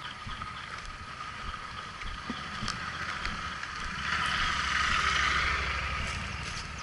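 Kawasaki KLR650's single-cylinder four-stroke engine running as the motorcycle rides slowly over a rough, muddy trail, with a few knocks from the ground. It gets louder about four seconds in and eases off toward the end.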